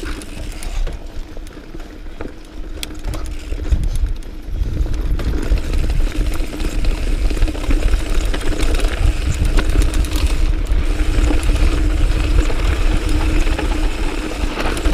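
Diamondback Sync'r mountain bike riding a dirt trail: wind rumbling on the microphone over tyre noise and scattered rattles and clicks from the bike, getting louder about four seconds in.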